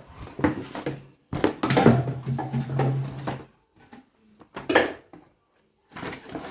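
Plastic blender accessories being handled and taken out of the box: bursts of clattering knocks and rattles with short gaps between them. A steady low hum sounds for a couple of seconds around the middle.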